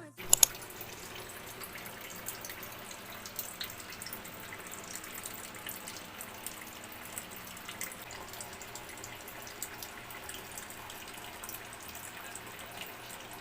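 Steady faint noise like running water, with two sharp clicks just after the start.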